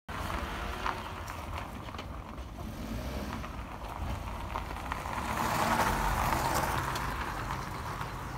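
A car passing by over a steady low rumble; its noise swells to a peak about six seconds in, then fades.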